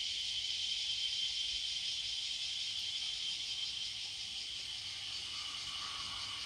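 Steady, high-pitched chorus of crickets with a fine, rapid pulse. A fainter, lower steady note joins about five seconds in.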